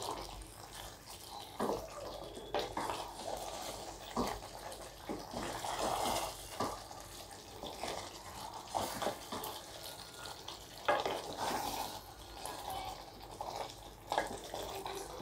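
Wooden spatula stirring a thick, wet mix of chicken and yogurt-and-cream masala in a nonstick kadai, giving uneven wet scraping swishes with a few light knocks against the pan.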